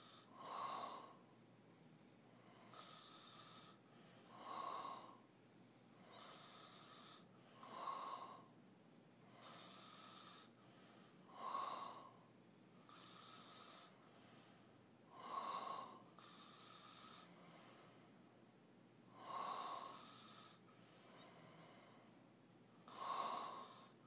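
A sleeping man snoring through his open mouth: seven loud snores, one about every four seconds, with a softer breath sound between each.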